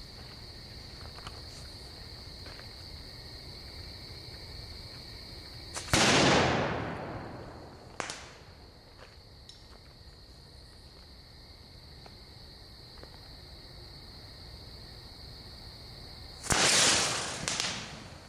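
Two loud blasts from homemade fireworks exploding, about ten seconds apart, each sudden and trailing off over a second or two, with a single sharp crack between them. Crickets chirp steadily underneath.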